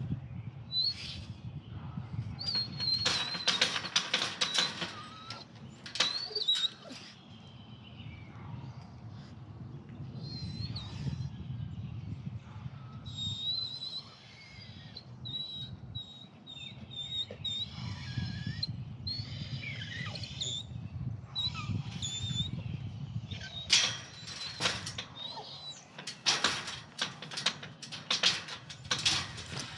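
A metal wire-panel gate and fence rattling and clanking in bursts as a dog jumps up against it and clambers over, the clatter strongest near the end. High chirps sound between the bursts.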